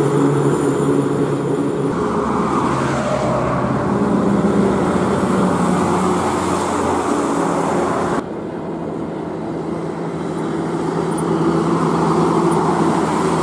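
Heavy laden multi-axle diesel lorries passing on a highway: steady engine drone with tyre and road noise. The sound changes abruptly twice, about two seconds in and about eight seconds in, then slowly builds again as the next lorry approaches.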